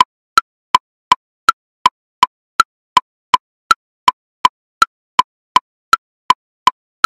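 Metronome ticking in triplets at 54 beats per minute, a woodblock sound: one higher click on each beat followed by two lower clicks, evenly spaced at about three clicks a second.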